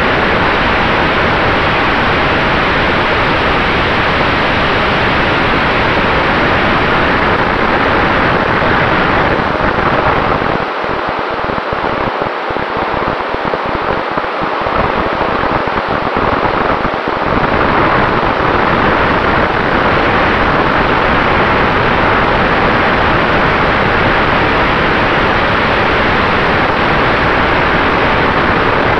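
Loud rush of wind over the onboard camera's microphone on an FPV model plane in flight, with a faint steady whine from its brushless motor and propeller underneath. The low rumble of the wind thins out and breaks up for several seconds about halfway through.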